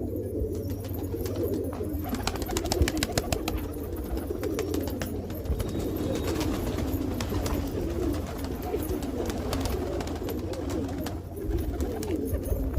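Domestic pigeons cooing steadily, several birds overlapping, with scattered light taps and clicks, thickest in the first few seconds.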